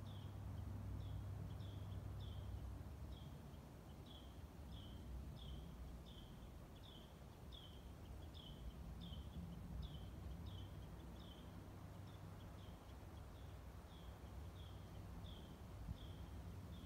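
Distant low rumble of a climbing Airbus A320neo's CFM LEAP-1A engines, strongest in the first few seconds and then fading. A small bird chirps over it about twice a second, a short high note repeated the whole time.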